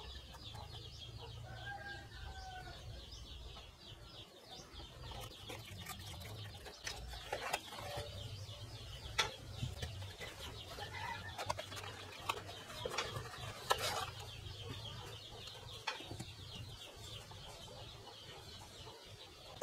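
Sharp clicks and knocks of hands handling a cardboard box and a power adapter's cable, the loudest about nine and fourteen seconds in, over a low steady hum. A bird calls briefly in the background about two seconds in.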